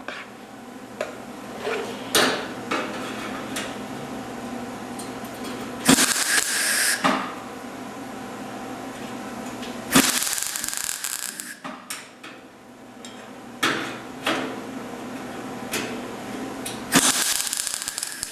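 Hand work on a sheet-metal hood patch: three harsh, noisy bursts of about a second each, with metallic knocks and clinks between them.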